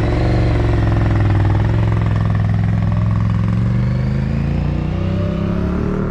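Sport motorcycle with an Ixil aftermarket exhaust pulling away and accelerating. Its engine note climbs at the start and again steadily through the last few seconds.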